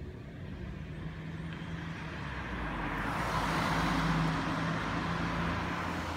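A car driving past close by: tyre and engine noise rising to a peak about four seconds in, then easing slightly as it moves away.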